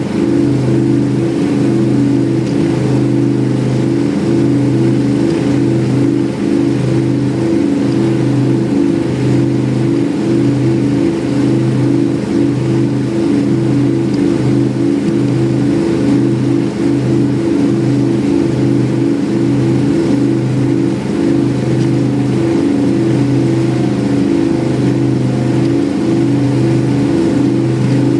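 Fountain powerboat's inboard engines running steadily at cruising speed, a loud drone that wavers in a slow regular pulse about once a second, over a wash of water and wind noise.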